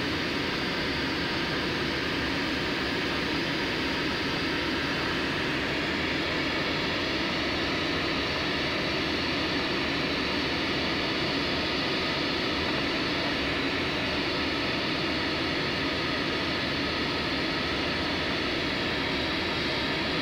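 Steady rush of air over the canopy inside a glider cockpit under aerotow, with the even drone of the tow plane's engine ahead.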